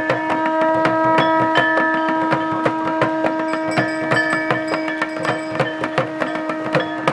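Conch shell blown in one long held note, over fast, steady drum beats and clanging percussion.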